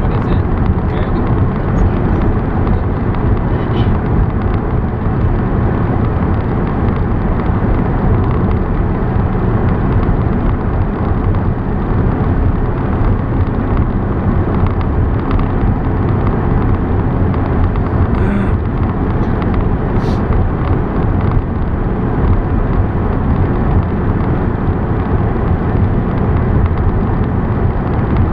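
Steady road and wind noise of a car driving along the highway, a constant low rumble with no change in pace, and a couple of faint ticks about two-thirds of the way through.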